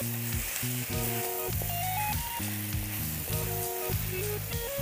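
Spiced potato cubes sizzling in oil in a kadai while they are stirred with a wooden spatula, with background music of held notes running over the frying hiss.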